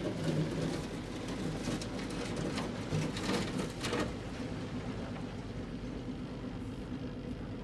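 Boat's outboard motor running steadily with an even hum, with a scatter of short crackles over the first four seconds.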